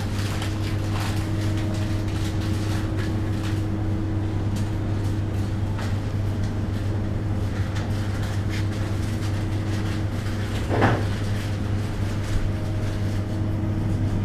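Steady low machine hum of supermarket refrigeration and ventilation, with a fainter constant higher tone and scattered light clicks and knocks; a brief louder knock about eleven seconds in.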